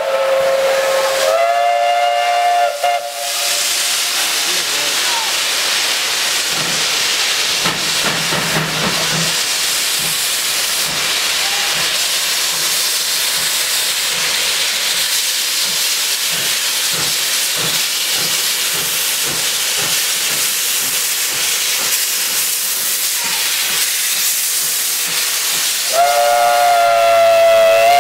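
SNCB Type 29 steam locomotive 29.013 sounding its whistle briefly at the start. It then moves off under a long loud hiss of steam with scattered low exhaust beats, and blows the whistle again in a long blast near the end.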